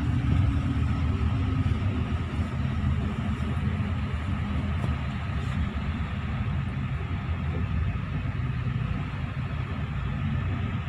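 Intercity coach heard from inside the passenger cabin: the engine's low drone and road rumble as the bus moves slowly through traffic, easing off slightly about two seconds in.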